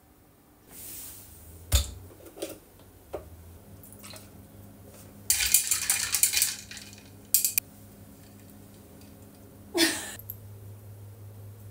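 Long-handled spoon stirring a drink in a tall glass: a few single clinks and knocks, then a burst of rapid clinking against the glass a little past halfway, and one more knock near the end.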